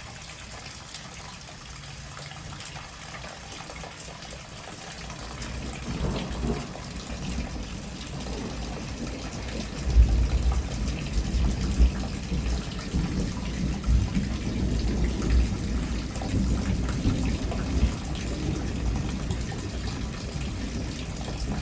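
Steady rain falling, then a deep thunder rumble building from about six seconds in. It jumps suddenly louder about ten seconds in and rolls on unevenly for the rest of the time: close thunder.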